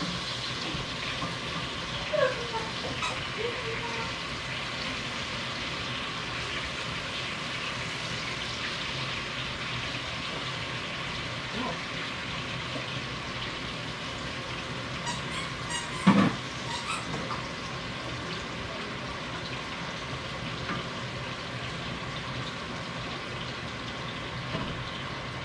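Potato wedges frying in butter and oil in a skillet, a steady sizzle. One sharp knock about sixteen seconds in.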